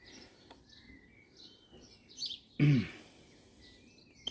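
Small birds chirping and tweeting throughout, with a man clearing his throat once, loudly, just before three seconds in.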